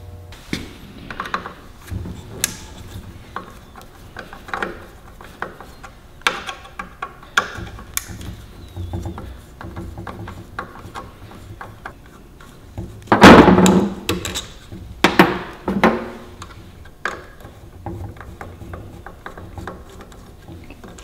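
Scattered small clicks and metallic knocks of hands and tools working on the back of an air-cooled alternator, undoing the Phillips screws that hold its voltage regulator. Two heavier thunks come about two-thirds of the way through as the unit is handled on the workbench.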